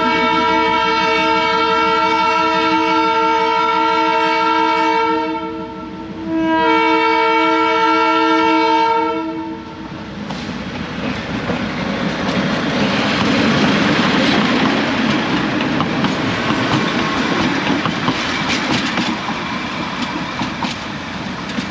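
NDM6 narrow-gauge diesel locomotive horn sounding two long blasts, the second starting about six and a half seconds in. After that, the train running with wheels clattering on the rails.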